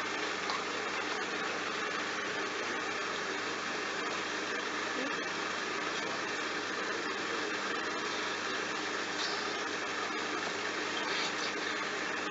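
Bosch washing machine running through its towel wash, a steady mechanical hum with water noise.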